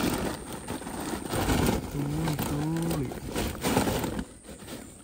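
Rapid rustling and tapping as a cast net is shaken over a woven plastic sack and its catch of small fish drops into it, stopping about four seconds in.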